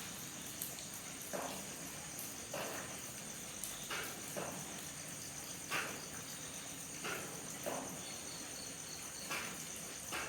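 Night chorus of crickets, a steady high pulsing trill, with a short soft sound recurring about once a second.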